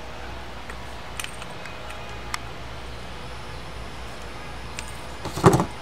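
Adjustable wrench tightening a thin nut on a lamp's threaded metal rod: a few faint metal clicks, then a short louder clatter near the end, over a steady low hum.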